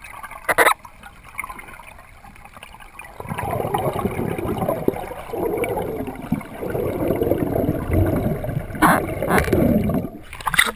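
Water gurgling and rushing past an underwater camera housing as it rises toward the surface, getting much louder about three seconds in, with a few sharp knocks near the end.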